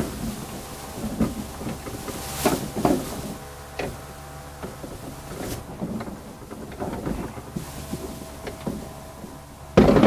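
Scattered light knocks, clicks and rustles of hands working at the plastic inner panel of a minivan sliding door, with a faint steady hum underneath.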